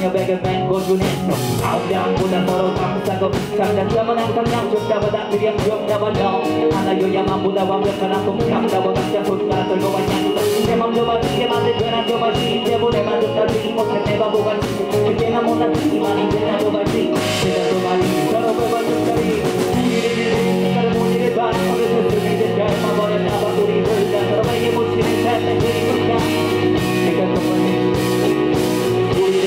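A live band (electric guitar, electric bass and drum kit) playing a song with a steady beat, with a rapped vocal through the microphone over it.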